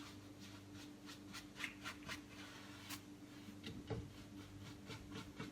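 Faint, repeated swishes of a wide paintbrush dragging acrylic paint across a canvas while blending, over a steady low electrical hum.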